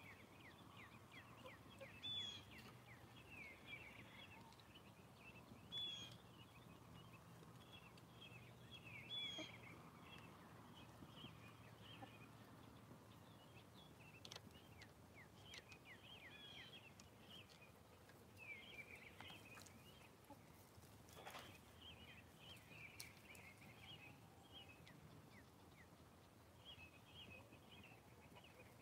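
Faint high chirping and twittering of birds: a steady scatter of quick little calls, with a few louder chirps in the first ten seconds.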